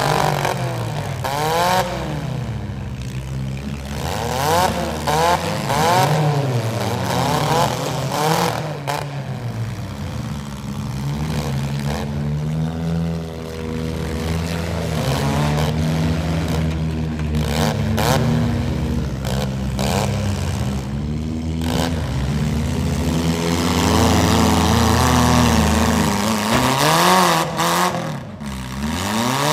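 Several demolition-derby minivan engines revving hard, their pitch rising and falling again and again, with repeated crashes of sheet metal as the vans ram one another.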